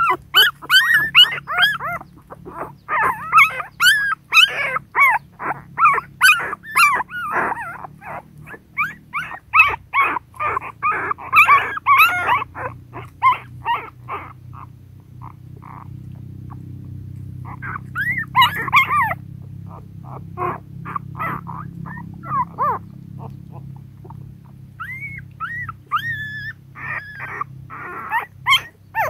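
Young puppies squeaking and whimpering in their den, many short high-pitched yelps in quick succession that thin out about halfway through, with a fresh flurry a few seconds later. A low steady hum runs underneath.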